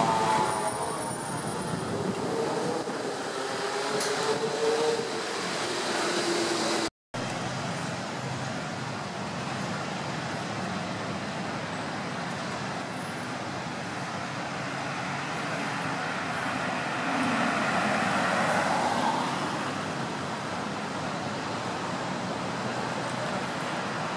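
City street traffic noise: engines of passing cars and a steady road hum, with a vehicle swelling past about eighteen seconds in. The sound cuts out completely for a moment about seven seconds in.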